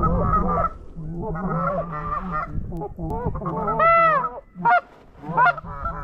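A flock of Canada geese honking, many calls overlapping, with one loud rising-then-falling honk about four seconds in.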